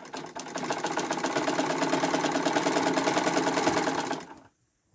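Sewing machine stitching cloth at a fast, even rate, a rapid steady clatter that runs down and stops about four seconds in.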